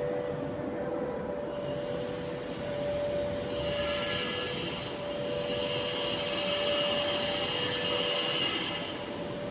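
Steady machine hum, joined about three and a half seconds in by a louder, higher-pitched power tool whirr that stops near the end.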